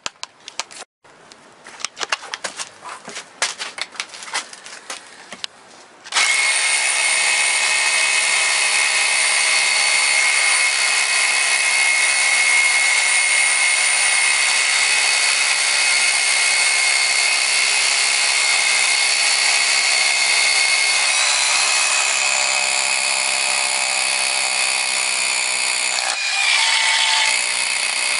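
Two SDS-plus rotary hammers, a DeWalt DCH273 cordless and a Makita HR2470 corded, hammer-drilling into a concrete block: a loud, steady motor whine over rapid hammering. Scattered clicks and knocks come first, and the drilling sets in suddenly about six seconds in. Near the end the sound drops a little and changes.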